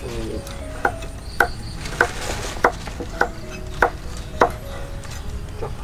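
Knife chopping food on a cutting board: seven sharp, evenly spaced strokes, about two a second.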